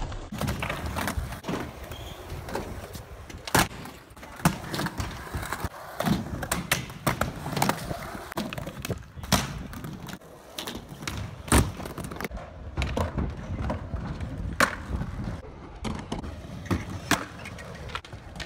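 Skateboard wheels rolling over concrete with a steady rumble. Many sharp clacks and knocks come at irregular intervals as the board hits the ground and ramp.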